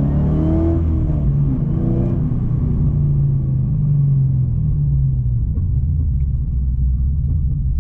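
Supercharged LSA V8 of a VF Commodore accelerating under load, its note climbing over the first couple of seconds, then holding steady and easing back to a low cruising drone after about five seconds.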